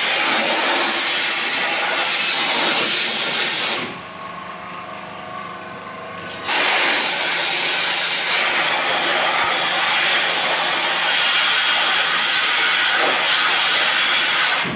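Wet copper slag blasting with a 500-bar high-pressure water jet: a loud, steady hiss of the abrasive jet striking a metal plate. It drops to a lower level about four seconds in and comes back at full strength about two and a half seconds later.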